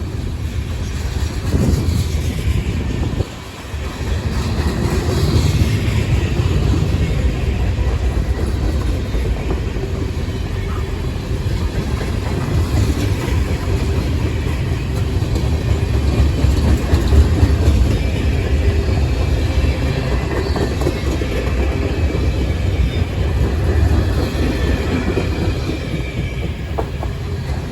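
Freight train rolling past, its railcars making a steady low rumble on the rails, briefly quieter about three seconds in.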